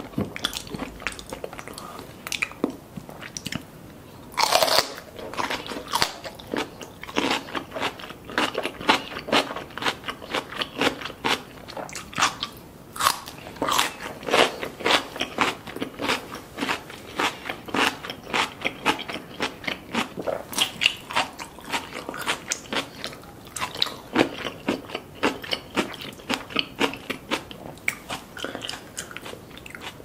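Biting into raw cucumber sticks and chewing them: a loud bite about four and a half seconds in, then a steady run of crisp crunches.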